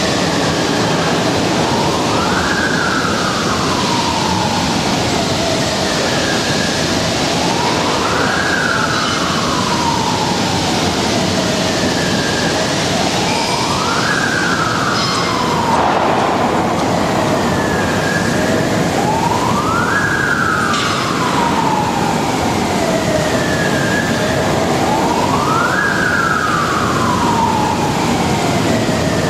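A siren wailing: a quick rise in pitch followed by a slow fall, repeating about every six seconds over a loud, steady noise.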